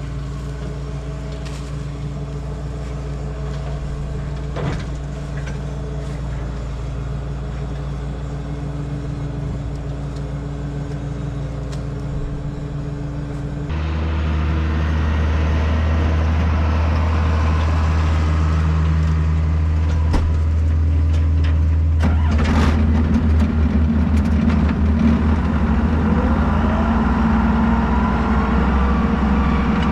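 Tractor engine running steadily. About 14 seconds in the sound changes abruptly to a louder, deeper rumble, with a few knocks and a rising whine near the end.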